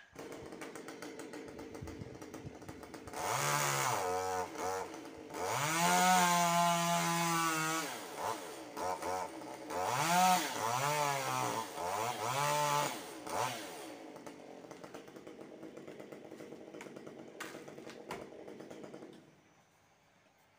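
Chainsaw idling, then revved up and down several times, held at high speed for about two seconds in the middle, before dropping back to idle and shutting off near the end.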